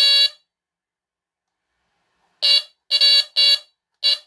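Amway E-8375 smoke alarm's horn sounding its very loud alarm tone during an alarm test. It gives one blast of about half a second, then stops for about two seconds, then sounds again in five short, unevenly spaced blasts.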